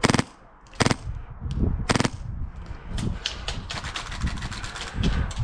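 Airsoft guns firing: three short, loud bursts of rapid shots in the first two seconds, then a longer run of quicker, fainter shots from about three seconds in.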